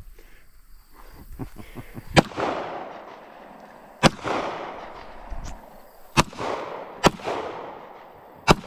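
Gunshots: five single shots spaced one to two seconds apart, each followed by a rolling echo, from a gun fed by a 30-round magazine.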